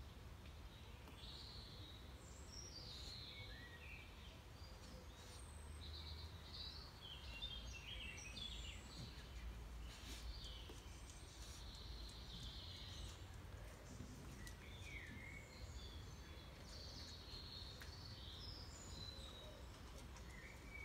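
Faint birdsong: scattered short chirps and calls of small birds over a low, steady background rumble.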